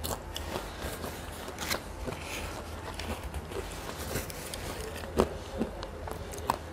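Quiet chewing of noodles, with a few sharp mouth or chopstick clicks spread through and a brief soft rustle of a tissue about two seconds in.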